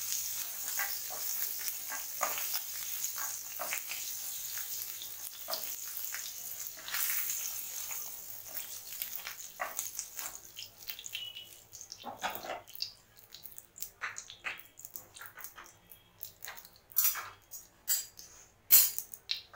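Hot oil sizzling in a nonstick frying pan as shallow-fried paneer cubes are lifted out with a spatula, with small scrapes and taps of the spatula on the pan. The sizzle dies down about ten seconds in, leaving scattered pops and clicks, with a few loud sharp clicks near the end.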